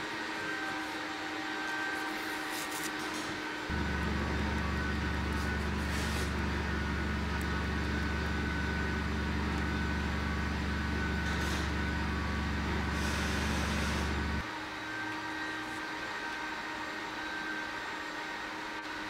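A steady background hum runs throughout. A louder, deep hum comes in suddenly about four seconds in, holds steady, and cuts off suddenly about ten seconds later.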